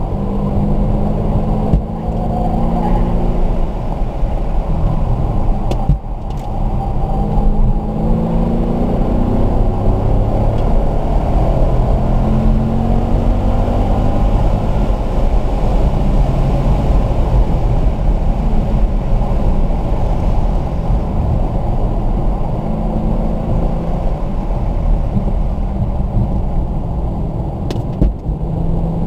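Car engine under hard acceleration on a race track, heard from inside the car: its pitch climbs in several steps as it pulls through the gears, then steadies and drops near the end as the car slows for a corner.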